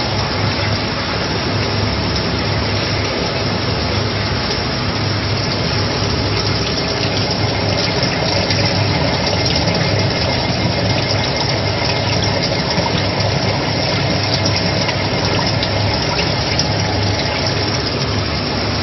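Volute screw sludge dewatering machine running: a steady machinery noise, a low hum under a constant hiss, with a few faint steady tones.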